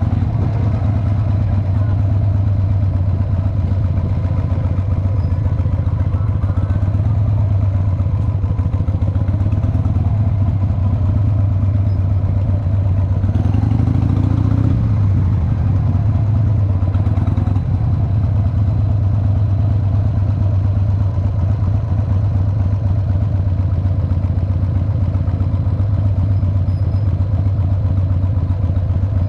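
Cruiser motorcycle engine running steadily at low revs as the bike rolls slowly, with a brief swell in the engine sound about halfway through.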